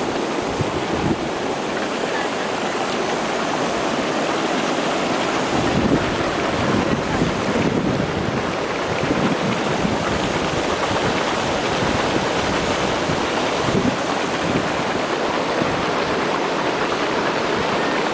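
Steam jetting out of volcanic fumaroles in a steady, loud hissing rush. Wind buffets the microphone with a low rumble from about a third of the way in.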